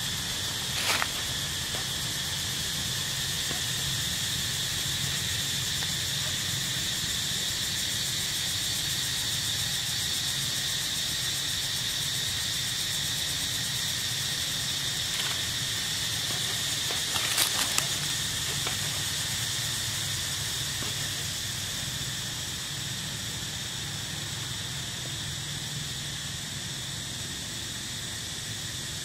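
Steady high drone of insects, a continuous buzz that holds one pitch, with a low background rumble and a couple of brief clicks, about a second in and again around seventeen seconds.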